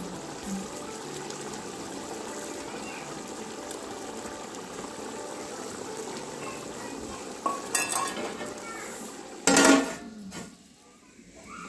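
Large aluminium cooking pot of spiced biryani liquid bubbling steadily at the boil. A few light metal clinks come about seven and a half seconds in, and about two seconds later the aluminium lid is set on the pot with a loud, ringing clang.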